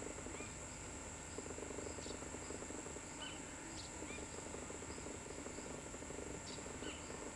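Tropical rainforest insects keeping up a steady high-pitched buzz, with a few short chirps about three seconds apart.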